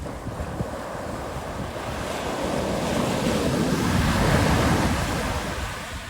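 Sea waves on a beach: a wave surges in, building to a peak about four seconds in and then washing back, with wind buffeting the microphone.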